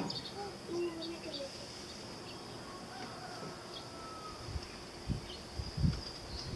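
Steady, high-pitched drone of insects, such as crickets or cicadas, with a few faint low thumps near the end.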